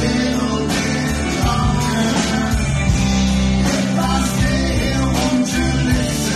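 Rock-style band music, with a steady bass line under pitched instruments and regular drum and cymbal hits.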